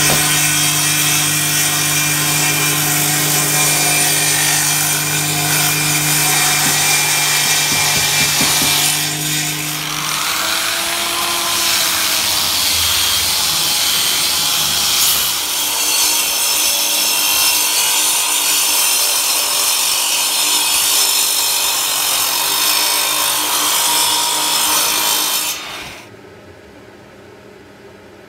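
Table saw running and ripping a thick wood slab, its motor hum steady under the cutting noise, for about the first ten seconds. Then a handheld rotary sander spins up and sands the face of a wood slab, stopping abruptly shortly before the end.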